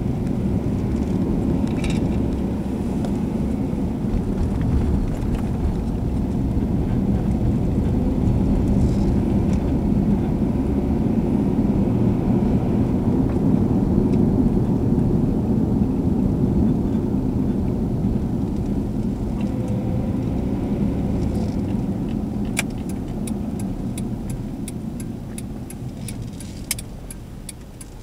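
Car cabin noise while driving: a steady low engine and tyre rumble that eases off over the last few seconds as the car slows. Near the end a regular ticking starts, the turn-signal indicator clicking as the car reaches a junction.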